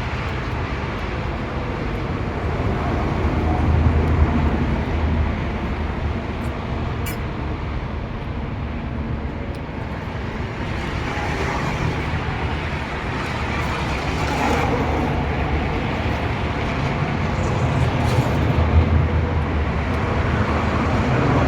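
Strong wind buffeting the microphone: a continuous rumbling rush that swells in gusts about four seconds in and again near the end.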